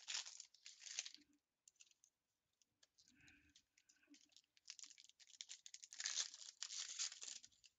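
Trading-card pack wrapper crinkling and being torn open, in two spells: briefly at the start and again from about five seconds in, with a quiet gap between.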